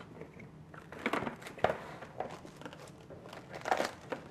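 Plastic cling film being stretched and pressed over a glass bowl, crinkling in irregular crackles. The crinkling is loudest about a second in and again near four seconds.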